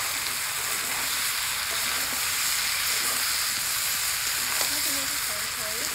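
Chicken pieces frying in spice paste and oil in a kadai over a wood fire, with a steady, even sizzle. This is the stage where the meat is browned in the cooked-down masala.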